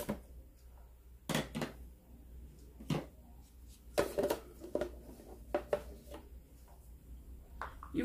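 A scattered series of light knocks and clicks from kitchenware being handled: a plate and a plastic blender lid set down on a stone countertop.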